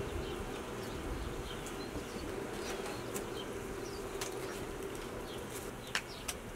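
Hands peeling the thin skin off fresh button mushrooms, making scattered soft clicks and crackles, with two sharper clicks near the end. Under it runs a steady low hum, with brief high bird-like chirps in the background.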